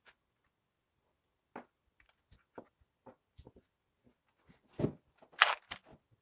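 Plastic LEGO Technic pieces clicking and knocking as they are handled and set down: scattered single clicks, then a louder clatter of parts about five seconds in.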